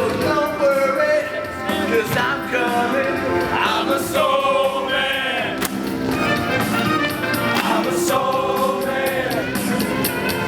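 A group of voices singing together over musical accompaniment.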